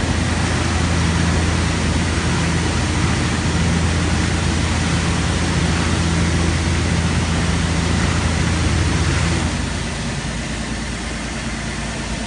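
Automatic car wash machine running: a steady electric-motor hum over rushing air or spray. The hum cuts off about nine and a half seconds in, leaving a quieter rushing noise.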